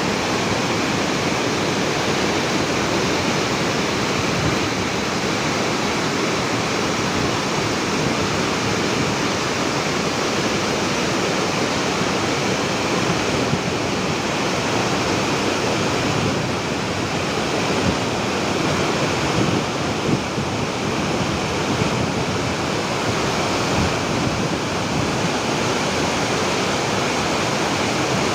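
Waterfall pouring down, a loud, steady, even rush of falling water.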